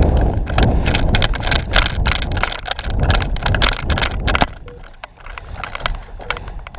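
Heavy, unsteady rumble of wind and movement on the microphone, with many irregular sharp clicks through it. The rumble drops away about four and a half seconds in.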